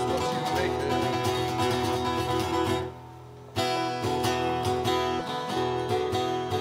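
Acoustic guitar strummed, chords ringing out. About three seconds in it stops for under a second, then the strumming starts again.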